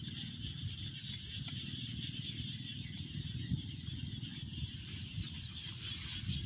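Open-field ambience: a steady high drone of insects over a low rumble of wind on the microphone, with a few short bird chirps about four to five seconds in.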